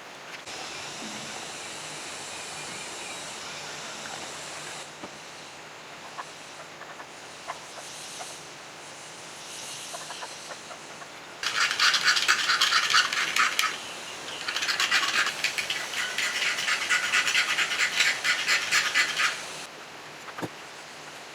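A soft hiss for the first few seconds, then two bouts of fast, rasping scraping strokes, one about two seconds long and one about five seconds long.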